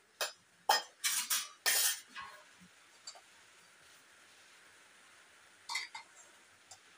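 Stainless-steel plates, lid and pot clanking and scraping as cooked rice is ladled out: a run of loud clanks in the first two seconds, then a few lighter clinks near the end. A steady hiss of rain runs behind.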